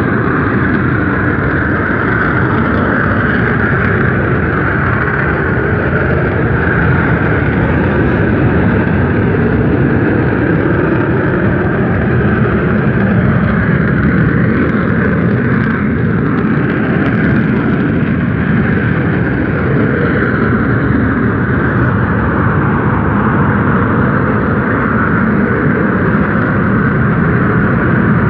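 Mount Bromo's crater venting volcanic gas: a loud, unbroken rushing rumble that holds steady throughout.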